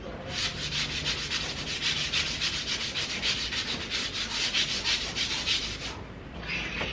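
Hand brush scrubbing the lower panel of a metal gate in quick back-and-forth strokes; the scrubbing stops about six seconds in and starts again briefly near the end.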